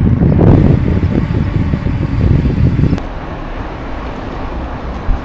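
Wind rumbling on the microphone while riding, mixed with traffic noise. About three seconds in it cuts off sharply, leaving a quieter, steady traffic hum.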